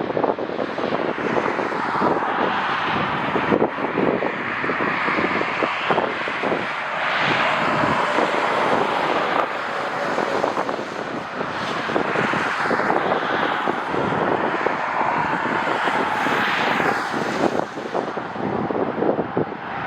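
Jet airliner engine noise, with gusty wind buffeting the microphone throughout.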